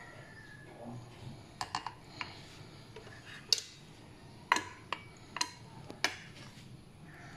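A series of sharp metallic clicks and clinks, the loudest near the middle: a tin can being set down on a ceramic plate and a handheld manual can opener being fitted and clamped onto the can's rim.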